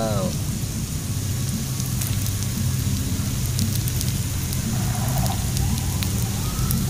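Steady rain pattering on leaves, an even hiss with scattered drop ticks and a low rumble underneath.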